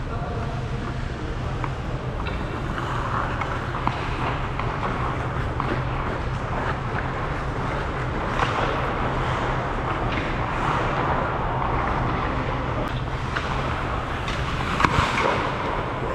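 Ice hockey skates scraping and carving on rink ice over a steady low hum, with a few sharp clacks of sticks or puck, the loudest about fifteen seconds in.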